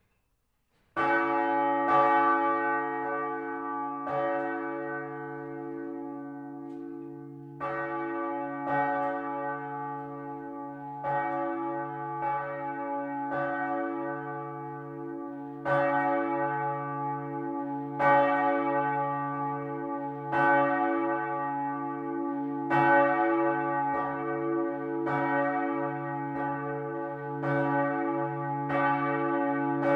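Swinging church bells of the Freudenstadt Protestant town church's seven-bell peal start ringing about a second in. Strokes come at an uneven pace, about one every second or so, with several pitches overlapping and a steady low hum under them.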